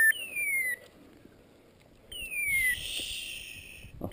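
A high whistled call gliding downward over less than a second, repeated about every two seconds. A brief rustling hiss comes about two seconds in.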